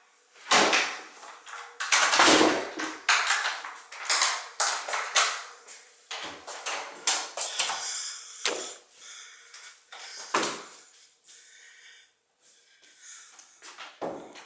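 Handling noise from a handheld camera: irregular rustling and scraping with several dull thumps and bumps, easing off near the end.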